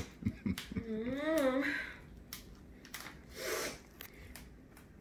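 Plastic wrap crinkling, clicking and tearing as it is peeled off a small cake by hand. About a second in, a voice gives a short wavering hum.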